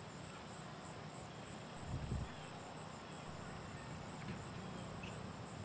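Crickets trilling: a steady, high-pitched, finely pulsing chorus over a low background hum. A brief low rumble comes about two seconds in.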